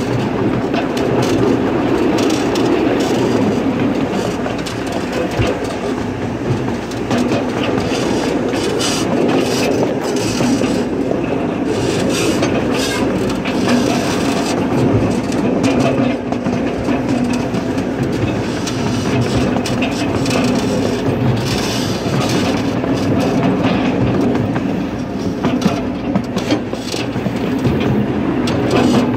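Ride-on miniature railroad train running along its track, heard from a passenger car: a steady rumble from the wheels and cars with frequent short clicks.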